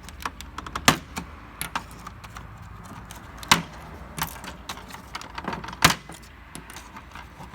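Gauge pointers being pried and pulled off a Chevrolet instrument cluster with a trim tool: scattered small plastic clicks and taps, with three sharper snaps, about a second in, halfway through and near the end.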